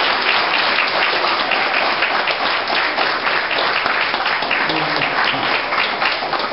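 A congregation applauding: dense, steady clapping from many hands.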